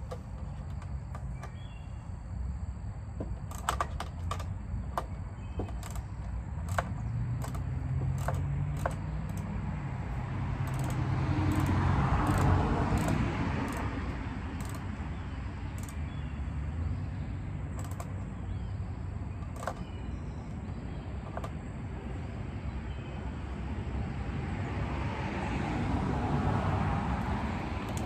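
Scattered light metallic clicks and taps of hand tools at work on the mower, mostly in the first ten seconds, over a steady low hum. Twice the background noise swells up and fades away, near the middle and near the end.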